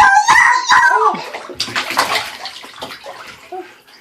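A child's high-pitched squealing voice with sliding pitch for about the first second, then bath water splashing as a baby slaps at it in the tub, fading off toward the end.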